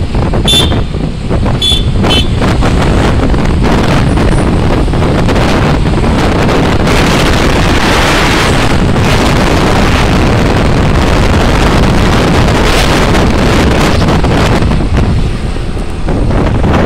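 Wind buffeting the microphone over road and engine noise from a moving motorcycle in traffic, with a few short high beeps in the first two seconds.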